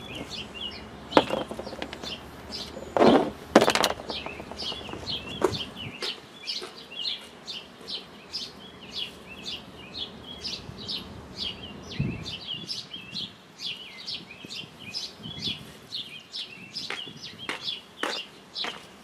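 A small bird chirping over and over, short high notes about two to three a second. A few sharp knocks come in the first four seconds, the loudest about three seconds in.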